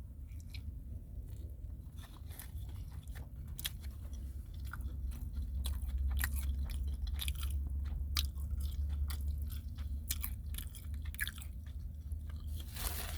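A person chewing and biting into a McRib pork sandwich close to the microphone: a run of small irregular clicks and crunches over a steady low hum.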